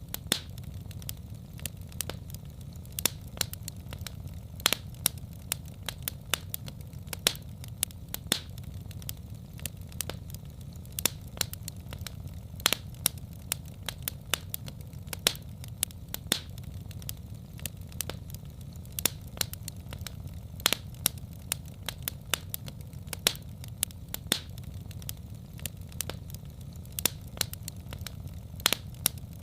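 Wood fire crackling and popping, sharp snaps several times a second over a steady low rumble of the flames.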